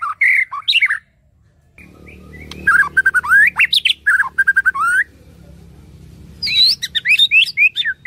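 White-rumped shama singing in three bursts of rapid, varied whistled notes that glide up and down, with short pauses between the bursts.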